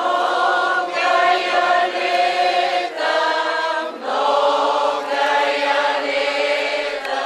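Choir singing in long held phrases, with short breaks about a second, three seconds and four seconds in.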